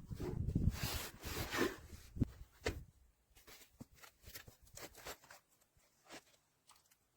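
Rustling and handling noise from packaging and parts being moved about, heaviest in the first three seconds. Scattered light clicks and taps follow.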